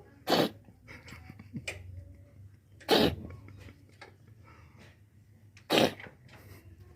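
Cat coughing in three short, sharp bursts, about three seconds apart, a cough that the owner puts down to eating too many geckos.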